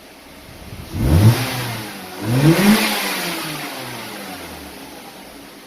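2004 Mazda 3's 2.3-litre 16-valve four-cylinder engine revved twice by blips of the throttle, each rev rising quickly, then settling back toward idle. It revs cleanly with no hesitation, its broken ignition coil pigtails freshly repaired.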